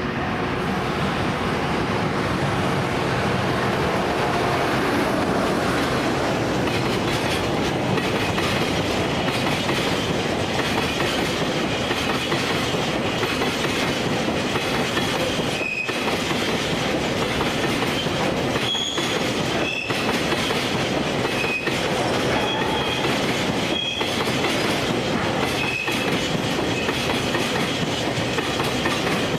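Electric train running past close by, a steady rumble of wheels on the rails with clickety-clack over rail joints. Brief high wheel squeals come several times in the second half.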